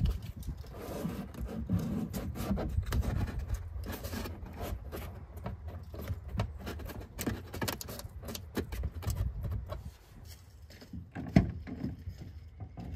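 Hand-handling noises: irregular rustling, scraping and light clicks, with a sharp knock at the start and another about eleven seconds in.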